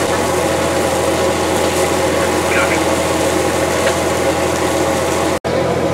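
Heavy truck diesel engine running steadily at idle, a constant low hum with a wash of noise over it. The sound cuts out for an instant near the end.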